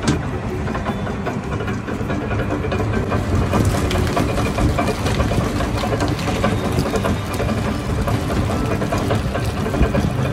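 Belt-driven sugarcane juice crusher running steadily, a dense mechanical rattle with many fine ticks that keeps on without a break.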